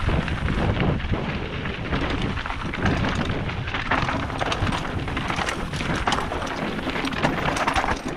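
Mountain bike riding down a loose, rocky trail: tyres crunching and clattering over gravel and stones with many small knocks and rattles, and wind rumbling on the microphone.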